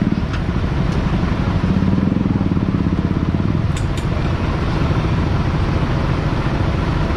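Motor vehicle engine running steadily close by with a rapid low pulsing, over street noise, with two faint short clicks about four seconds in.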